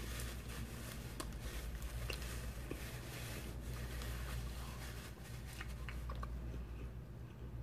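Faint chewing of a mouthful of stromboli and a paper napkin being rubbed over the hands, making scattered small clicks and crackles over a steady low hum.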